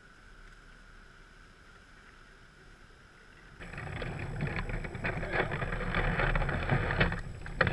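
Water splashing and sloshing around a fishing kayak. It comes in suddenly a few seconds in, as irregular splashes over a low rumble; before that there is only a faint steady high tone.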